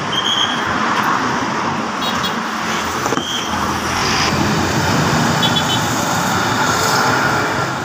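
A large coach pulling away close by, its engine running under heavy rumble and road noise. A few short high beeps sound over it.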